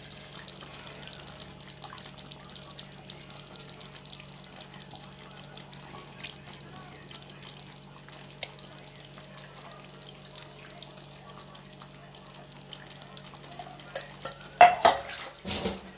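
Fish curry simmering in a clay pot on the stove: a steady faint bubbling and crackle over a low hum. Near the end come a few loud knocks and clatters of utensils against the pot.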